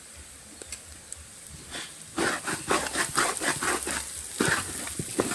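An animal calling repeatedly, in a rapid string of short loud calls starting about two seconds in.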